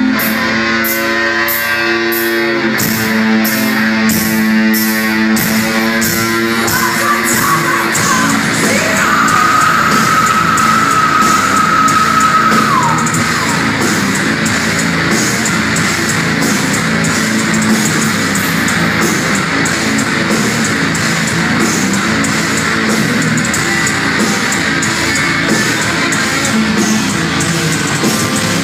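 Live metal band playing loudly in a concert hall, heard from within the audience: distorted electric guitars over a steady drum beat, with a long held high note about nine seconds in that slides down at its end.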